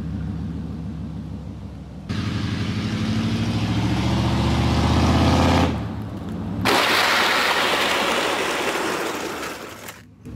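OBS Chevy pickup engine revving, its pitch climbing for a few seconds, then easing off briefly. It is followed by about three seconds of loud, rough rushing and scraping noise.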